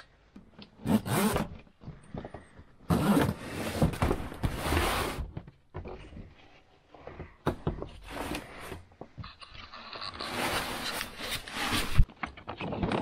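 Rustling and scraping of foul-weather gear and clothing in irregular bursts as someone moves about in a small sailboat cabin, with a single sharp knock near the end.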